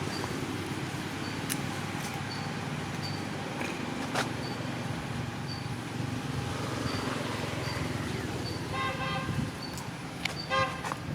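A vehicle horn honking twice near the end, two short pitched beeps about a second and a half apart, over steady outdoor background noise.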